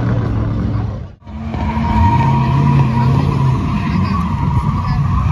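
A drift car sliding through a corner, its engine held at high revs while the tyres squeal steadily. Just before, a car engine is heard, then the sound cuts out for a moment about a second in.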